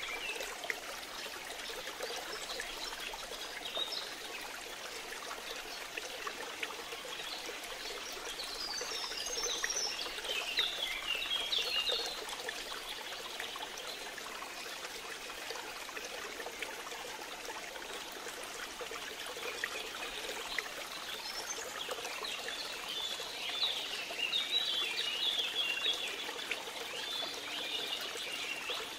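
Running water trickling steadily, with bouts of high, quick chirping about a third of the way in and again near the end.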